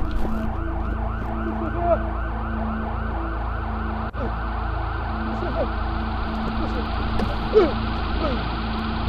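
A steady, fast warbling siren-like tone, about five wavers a second, over a low hum, with a few short sliding calls.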